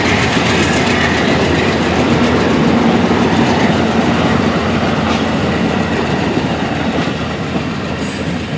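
Train rolling past close by, its wheels clattering steadily over the rails.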